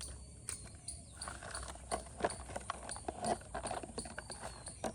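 Irregular light clicks and knocks of small plastic toys being handled and set down, with faint rustling.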